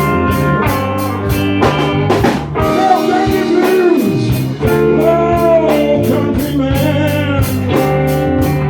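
Live blues band playing, with a sung vocal line over electric guitar, bass and a steady ticking beat on the cymbals.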